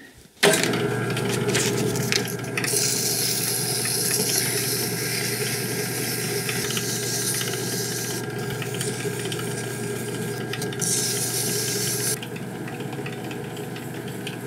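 A drill press motor starts about half a second in and runs with a steady hum. Sandpaper held against the spinning wood-infilled copper plug in its chuck adds a high hiss in two stretches, one long and one short near the end.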